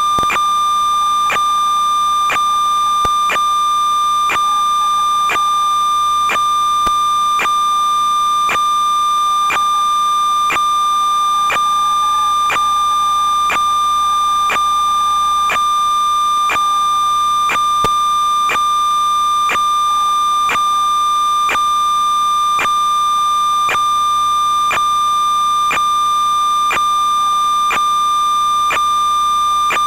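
Steady, high electronic tone with a sharp click about every two-thirds of a second. It is the buzz of the analog FPV video link's audio channel, recorded along with the goggles' footage. The tone does not follow the quad's motors.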